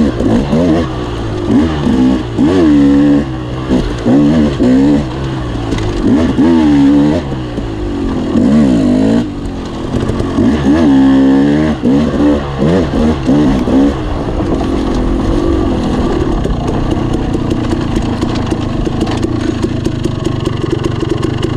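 Enduro dirt bike's engine revving up and falling back again and again as the rider works the throttle through gear changes, then running at a steadier speed for the last third.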